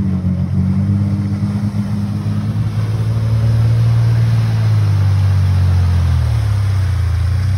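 Ford Ranger pickup's engine running steadily under load as the truck wades through deep water, breathing through a homemade PVC snorkel, with water sloshing around it. The engine note changes about six seconds in as the truck climbs out onto the bank.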